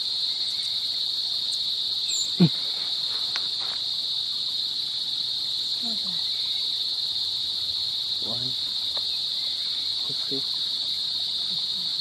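Steady high-pitched insect chorus droning without a break, with a few faint, short falling calls underneath.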